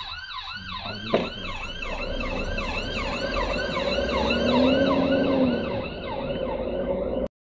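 Ambulance siren on a fast yelp, its pitch rising and falling about four times a second, getting louder as it comes closer. It cuts off suddenly near the end.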